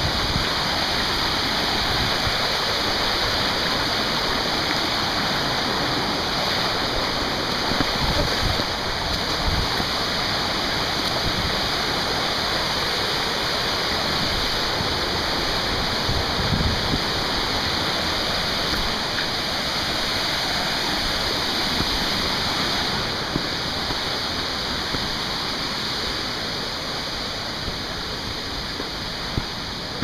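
Rushing white water of a waterfall cascading over boulders: a steady, loud rush that eases slightly about three-quarters of the way through.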